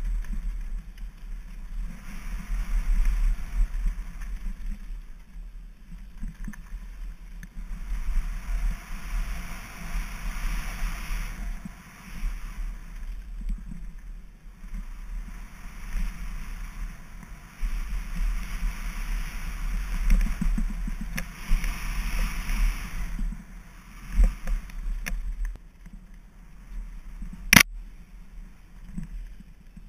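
Wind rushing over the camera microphone and mountain bike tyres rolling over a dry dirt trail at speed: a steady low rumble with swells of gravelly hiss that rise and fall every few seconds. A single sharp knock comes near the end.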